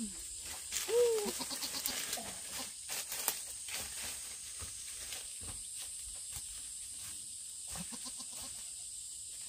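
A goat bleats once, loudly, about a second in, with a few fainter short animal calls around it and a steady high hiss.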